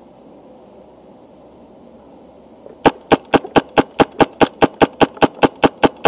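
Wolverine Inferno Gen 2 HPA airsoft rifle firing a rapid, even string of sharp shots, about five a second, starting about three seconds in. Before that, only a faint background hiss.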